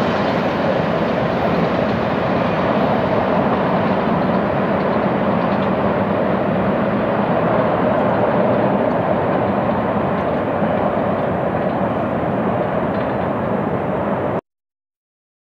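The steel wheels of a long BNSF double-stack intermodal train's well cars rolling on the rails, a steady rumble that grows duller as the train draws away. It cuts off suddenly near the end.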